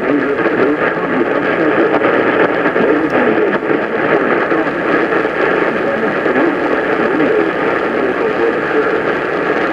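Off-air radio audio buried in static: a steady, unbroken hiss with a muffled voice too faint to make out underneath.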